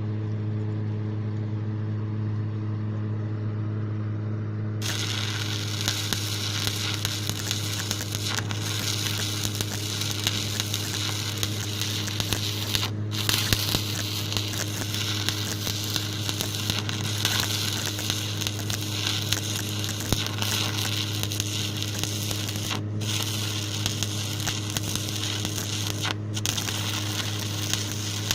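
Stick-welding arc running a bead with a 1/8-inch 7018 electrode: a dense crackling sizzle that starts abruptly about five seconds in and carries on, breaking off for a moment a few times. A steady low hum sits underneath throughout.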